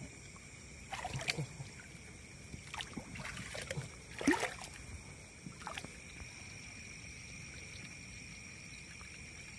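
Shallow pond water splashing and sloshing in several short bursts as hands grope along the muddy bottom for freshwater crayfish, the loudest splash about four seconds in.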